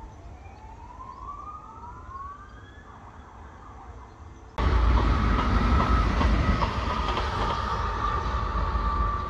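An emergency-vehicle siren wailing in slow sweeps that fall and then rise in pitch. About halfway through it cuts off abruptly to much louder, steady vehicle noise: a heavy rumble with a held high tone over it.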